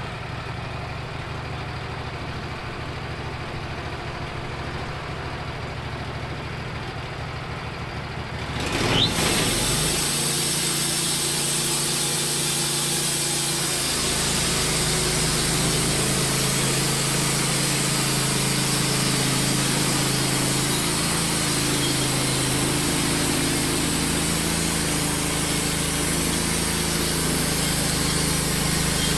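Wood-Mizer LT15 band sawmill's engine running steadily. About nine seconds in it revs up and the band saw blade enters the black cherry log, cutting steadily and louder from then on.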